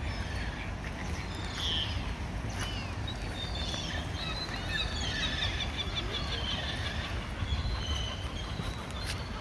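A flock of birds by a lake calling, many short high calls overlapping in a busy chatter that builds about a second and a half in and thins near the end, over a steady low rumble.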